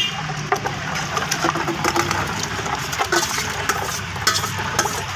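Syrup-soaked sago pearls being scraped from a steel bowl with a spoon and dropped into a large steel pot of milk, then stirred: wet splashing with frequent clinks of steel on steel, over a steady low hum.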